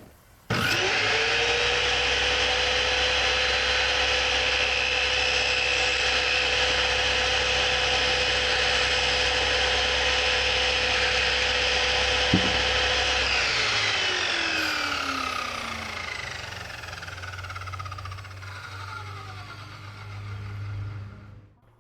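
Electric power saw starting up, its motor rising quickly to a steady high speed and running for about thirteen seconds, then switched off and winding down over several seconds.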